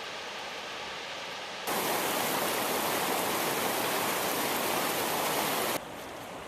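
Rushing stream water, a loud steady hiss that starts abruptly about two seconds in and cuts off abruptly near the end, with a softer steady rushing sound on either side.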